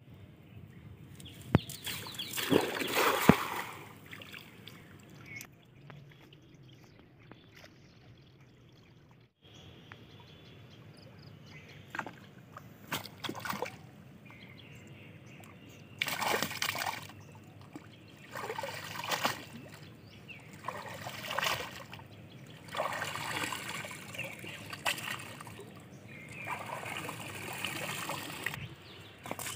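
Water splashing and sloshing as a cast net is thrown into a pond and hauled back in through shallow water, with water trickling off the wet net. The loudest splash comes about two to three seconds in; later come repeated bursts of sloshing as the net is dragged and lifted out.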